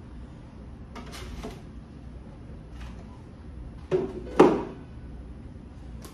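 Light plastic clicks and rustles from a hollow plastic RC truck body being handled, then two sharp knocks about four seconds in, the second louder, as the body is set down on a table.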